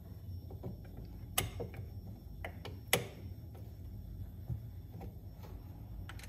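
Light clicks and taps of a thick rubber auger flap being handled and positioned against the snowblower's metal auger bracket, with two sharper knocks about one and a half and three seconds in.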